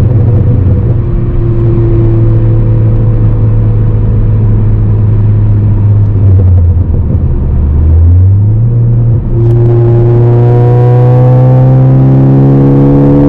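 2018 Ford Focus ST's turbocharged 2.0-litre four-cylinder engine through a Roush exhaust, running under way with the revs sagging slowly. About eight to nine seconds in the pitch falls and rises again and the sound dips briefly, as in a gear change. After that the engine pulls with the revs rising steadily.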